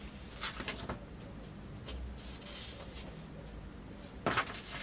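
Paper rustling as the pages of a printed instruction booklet are turned and handled, with a few soft clicks and a louder rustle near the end.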